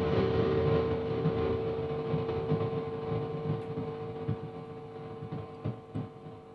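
Hum and hiss from a high-gain, distorted electric guitar patch on a BOSS GT-10 multi-effects processor, strings lightly muted. It fades gradually as the noise suppressor's threshold is turned up and the gate starts cutting the noise.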